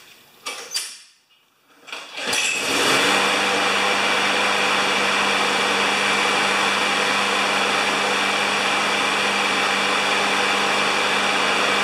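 Briggs & Stratton engine of a Poulan Pro push lawn mower starting up about two seconds in, after a few short clicks, then running at a steady speed. The engine has just been tuned up with a new spark plug, fresh oil and a new air filter.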